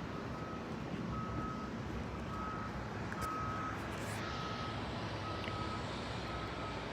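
Vehicle backup alarm beeping steadily, one short high beep about every second, over a low rumble of engine and traffic noise.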